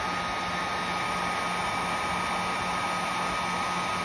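Electric heat gun running steadily, its fan blowing hot air with a constant whine over the rush, as it heats a waterproof heat-shrink wire connector to shrink it down.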